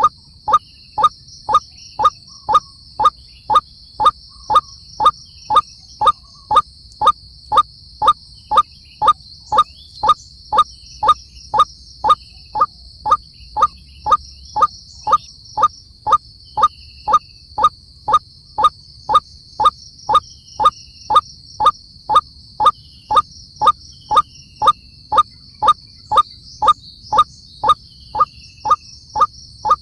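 White-breasted waterhen giving its monotonous croaking call, one short rising note repeated evenly about twice a second without a break.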